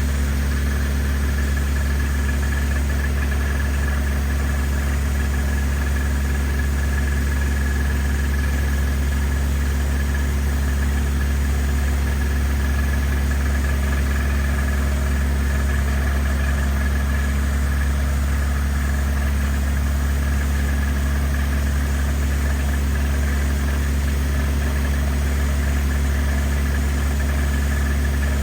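An engine runs steadily at a constant speed during water-well drilling, with a strong deep hum that never changes pace.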